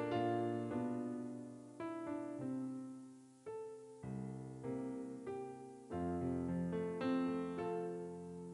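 Background piano music: slow chords and melody notes struck one after another, each ringing and fading.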